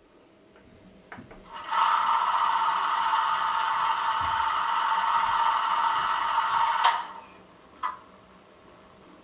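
Steady mechanical buzzing from a stationary model class 110 electric locomotive's sound module, starting just after a click about a second and a half in and cutting off with a sharp click about five seconds later; a single click follows a second after.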